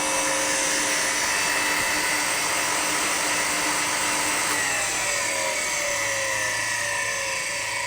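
Compressor's electric motor running with a steady high whine after an abrupt start; about halfway through, its pitch begins to fall slowly.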